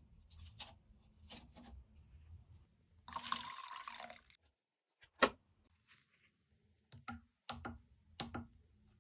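Scattered light clicks and taps of small workbench handling, with a short hissing burst about three seconds in and one sharper click a couple of seconds later.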